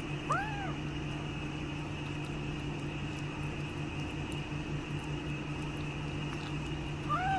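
Two short cat meows, each rising then falling in pitch, one just after the start and one near the end, over a steady low mechanical hum.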